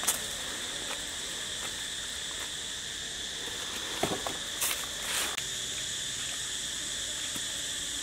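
Steady chirring chorus of forest insects, with a few short rustles and knocks about halfway through as a wicker basket is picked up and handled.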